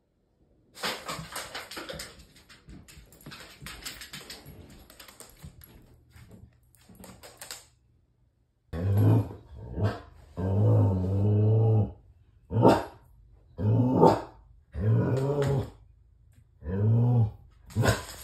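Dog play-growling and grumbling: first a few seconds of rough huffing and scuffling, then, from about halfway, a run of about eight loud, drawn-out, low growl-moans that bend in pitch, one held almost two seconds.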